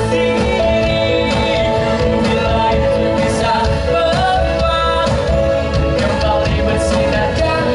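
A band playing a song live, with a singer.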